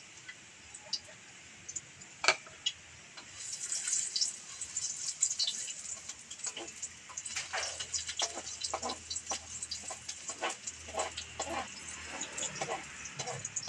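Food sizzling in hot oil in a wok, the hiss starting about three seconds in as the ingredients go into the pan. A spatula clacks and scrapes against the wok as the food is stirred, with one sharp clack against the bowl before the sizzle begins.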